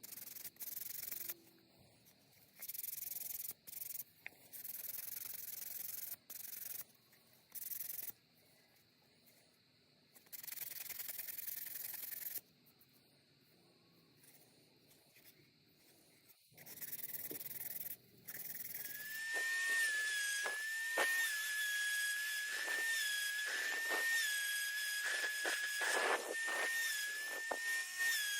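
Wood being sanded in short passes, a hissing rub that starts and stops with quiet gaps. About 19 seconds in, a small high-speed rotary tool starts up and runs with a steady high whine.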